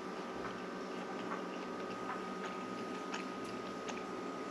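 Soft, irregular clicks of a man chewing a mouthful of cooked black rice, over a steady background hum with a faint high whine.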